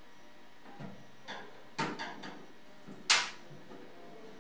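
A screwdriver and screws knocking and clicking against a steel PC case as motherboard screws are undone: a scatter of light knocks, then one sharp click about three seconds in, the loudest.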